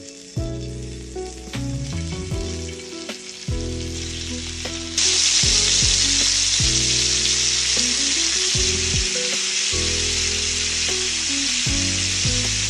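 Chicken skewers sizzling in oil in a shallow pan; the sizzle turns much louder about five seconds in and holds steady. Background music plays throughout.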